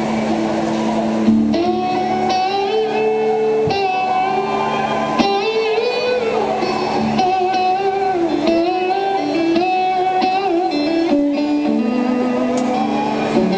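Live concert music with an electric guitar playing a melody of held notes that slide between pitches, over a steady low sustained note.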